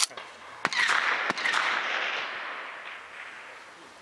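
Gunshots at an open-air range: a single sharp report, then about half a second later a quick burst of several shots in rapid succession. Their echo rolls away and dies out over about two seconds.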